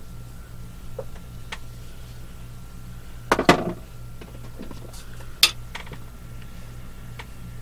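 Small hard objects being handled and set down: makeup items clicking and clattering on a table, a quick cluster of clacks about three and a half seconds in and another sharp click about two seconds later, with lighter taps around them. A steady low hum runs underneath.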